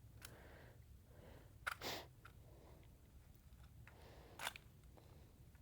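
An AR-15 being handled: a sharp click and a short metallic rattle a little under two seconds in, and another short rattle near the end, as the rifle is double feeding.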